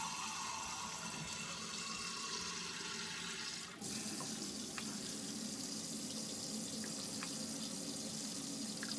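Hot water running steadily from a camper's faucet, drawn continuously from an Alde water heater. About four seconds in the sound briefly dips, then the stream runs on with a lower tone.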